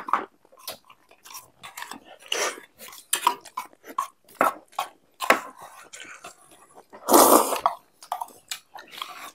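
Close-miked eating of instant noodles: a run of wet chewing, smacking and slurping clicks, with a louder, longer burst of noise about seven seconds in.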